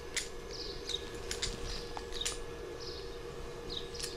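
Light metal clicks and taps from handling and fitting a thermometer probe into the top of a stainless-steel still column, over a steady hum.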